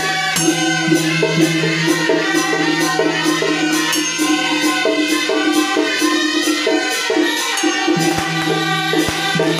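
Music: a steady beat of jingling, rattling percussion, about two strokes a second, over a sustained low held tone that breaks off briefly near the end.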